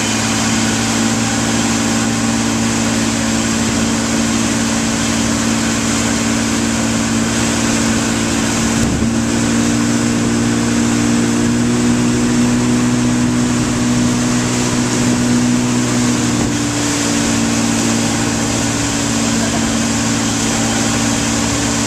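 Motorboat engine running with a steady hum while towing a tube, over the rush of the churning wake and wind.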